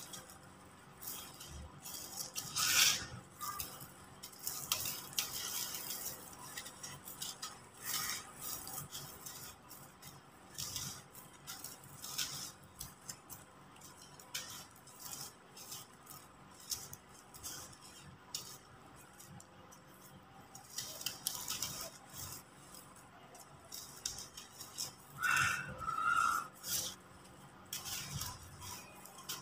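Hands crumbling clumps of dry yellow clay dirt, giving an irregular gritty crunching and crackling as grains sift and fall. A few louder crunches come about 3 seconds in and again about 25 seconds in, where a short squeaky note sounds.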